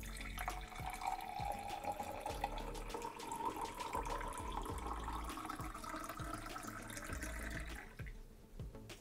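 Filtered water poured in a steady stream from a plastic filter pitcher into a tall drinking glass. Its tone slowly rises as the glass fills, and the pour stops about 8 seconds in.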